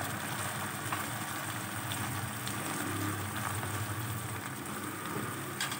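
Sliced bitter gourd and onions sizzling steadily as they fry in oil in a pan, with a spoon stirring through them.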